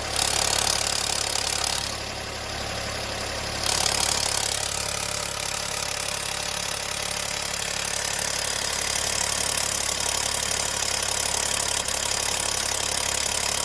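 VW Golf 7's 1.0 TSI three-cylinder turbo petrol engine running after a cold start, the condition in which the owner reports a rattle. It grows louder twice in the first four seconds, then runs steadily.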